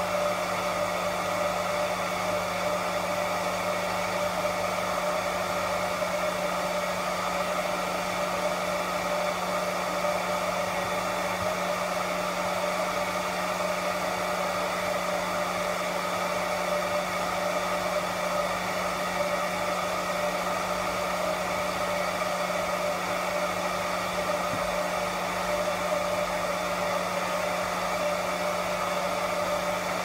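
A hair dryer running steadily without a break: an even blowing rush over a constant low hum.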